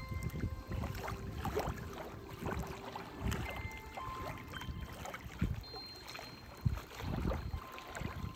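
Small waves lapping and splashing irregularly at the water's edge.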